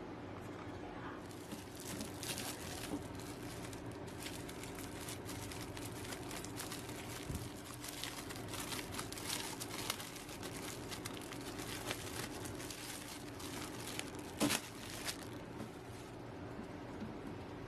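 Clear plastic bag crinkling and rustling as a tablet case is handled and pulled out of it by hand, with one louder crackle late on. The crinkling stops shortly before the end.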